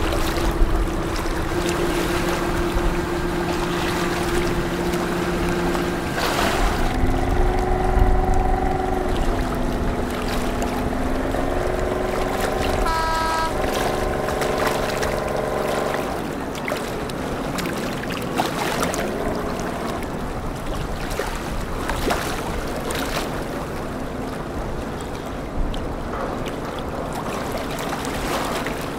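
Boat engines droning on the river: several steady tones that shift in pitch as the craft move, with a short horn toot about halfway through. After that the engine tones fade and a broad rush of wind and water noise takes over.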